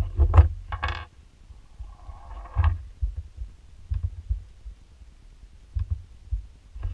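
Handling noise at a desk: a quick cluster of knocks and clatter as digital calipers and a small part are set down, a short rasp about two seconds in, then scattered soft thumps and faint clicks from a finger working a laptop touchpad.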